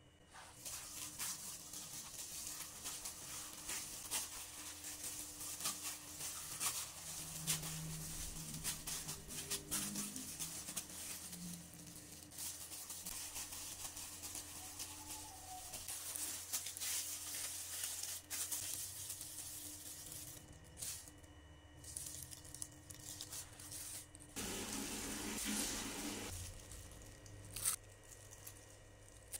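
A clear plastic disposable glove crinkling and rustling as a hand kneads soft mashed-cassava and cheese dough, with the crackle coming in dense irregular bursts.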